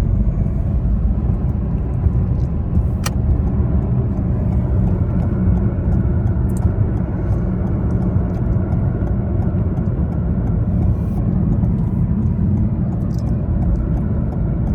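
Steady low road and tyre rumble of a moving Toyota Corolla Hybrid, with one sharp click about three seconds in.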